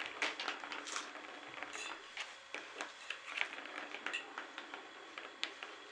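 A cat batting a plastic ball around the channel of a plastic track toy: irregular clicks, taps and rattles of ball and paws on hard plastic.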